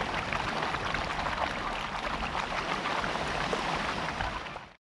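Surf washing over a round-pebble beach: a steady rush of water thick with the fine crackle of rolling pebbles. It cuts off suddenly near the end.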